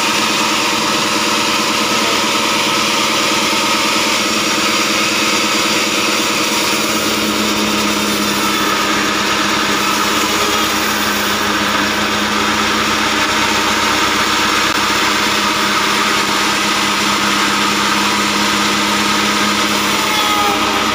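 Engine-driven band sawmill running steadily, its blade cutting through a heavy, hard acacia log.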